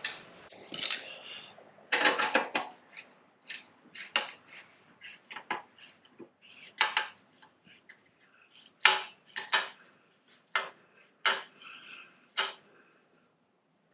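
Metal hand tools and exhaust hardware clinking and knocking during motorcycle exhaust installation: irregular sharp clinks, some ringing briefly, with short gaps between.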